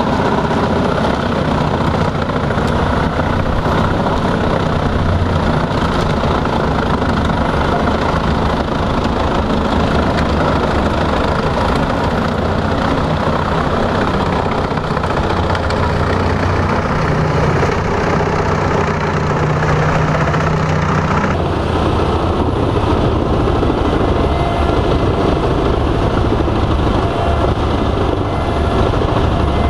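Large truck-mounted drum wood chipper running, its 520 hp Volvo TAD1242 inline-six diesel driving the chipping drum with a steady, loud mechanical noise. The sound changes abruptly about 21 seconds in.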